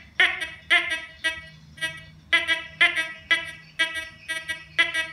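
Metal detector giving its target-response tone: a string of short, ringing beeps about two a second as a beer bottle cap is swept back and forth near the search coil.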